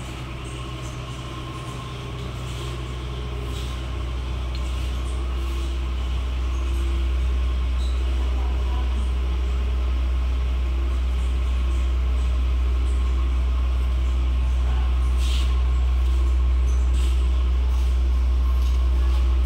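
Steady low mechanical hum with faint steady tones above it, growing louder over the first several seconds and then holding level.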